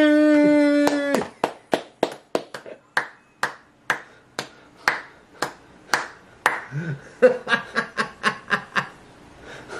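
A man's drawn-out cheer of "yay!" ends about a second in. He then claps his hands steadily, about three claps a second, and breaks into a faster burst of clapping near the end.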